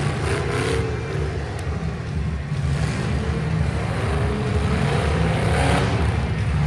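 Several demolition derby cars' engines running together, revving up and down in a steady rumble.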